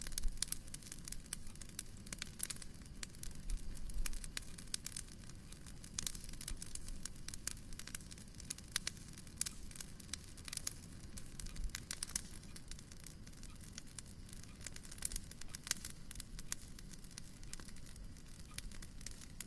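Wood fire crackling in a fireplace: many irregular sharp pops and snaps over a soft, steady low rumble.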